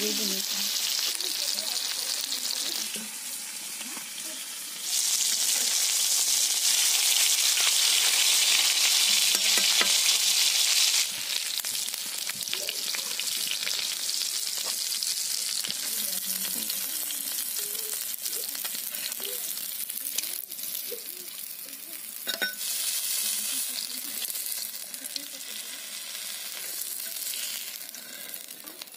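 Katla fish steaks sizzling in hot oil in a blackened pan, the sizzle swelling louder about five seconds in and dropping back about six seconds later. From the middle on, a metal spatula scrapes and clicks against the pan as the fried pieces are lifted out.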